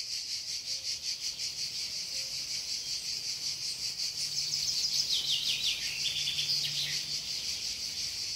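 Crickets chirping steadily in an even pulsing rhythm. About four seconds in, a bird sings a few short runs of falling notes over it.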